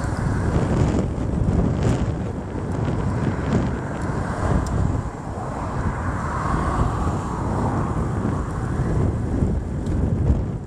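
Strong wind buffeting the microphone: a loud, unsteady low rumble with a few faint clicks.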